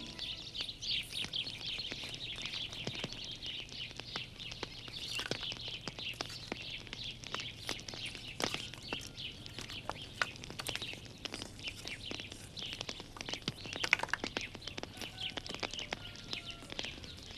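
A flock of small birds chirping and twittering without a break, with scattered sharp clicks and a faint low hum underneath.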